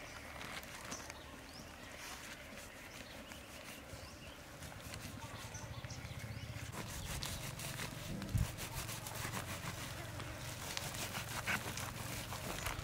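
Gloved hands working a raw rumen on a plastic sheet, then a knife slicing it open: soft rubbing and plastic rustling, turning to rapid, fine cutting and scraping strokes from about halfway.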